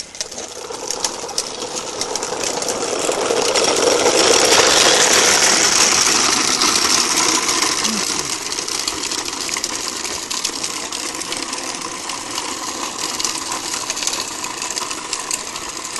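Plastic wheels of a child's push-along tricycle rolling over a rough path: a continuous gritty rolling noise that grows louder over the first few seconds and then slowly eases.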